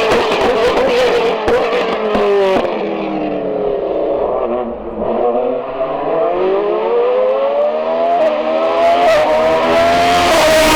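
Hillclimb race car engine, its pitch falling as it slows, with a few sharp cracks about two seconds in. It then accelerates hard with the pitch rising, and drops with an upshift near the end.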